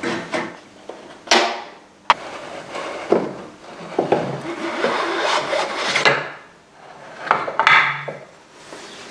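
Workshop noise of hand tools and parts being worked on a motorcycle's rear end: irregular scraping, rubbing and clunking, with a sharp knock about two seconds in.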